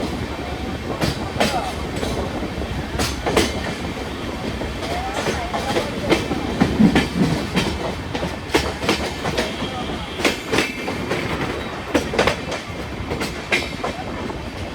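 Passenger express train running, its wheels clattering unevenly over the rail joints with a steady rumble underneath.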